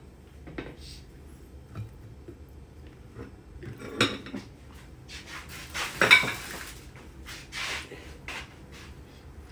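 Plates and cutlery clinking and clattering on a kitchen counter as food is handled and plated, with the loudest clatters about four and six seconds in.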